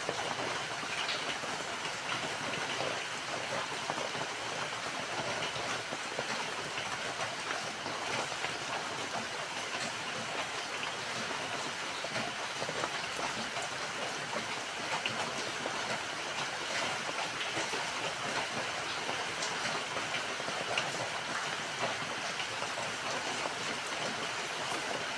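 Steady rainfall with a constant hiss and scattered individual drop strikes on surfaces.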